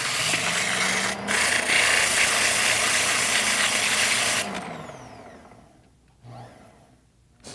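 Sandpaper rasping against a cork ring handle spinning on a rod wrapper, a loud steady hiss over the motor's hum. About four and a half seconds in, the sanding stops and the motor winds down, its hum falling in pitch and fading.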